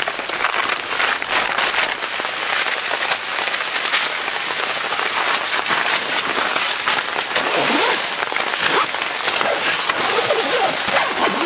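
Rain falling on a tent's fabric, heard from inside the tent: a steady, dense patter of many small drop impacts.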